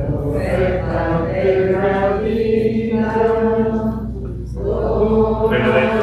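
Voices singing a slow Mass hymn at the offertory, with long held notes. The singing breaks off briefly about four seconds in, then carries on.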